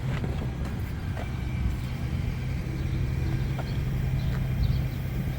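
A vehicle engine idling with a steady low hum, with a few faint clicks over it.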